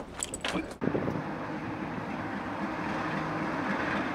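A few sharp clicks and knocks, then from about a second in a train running with a steady rumble and a low hum.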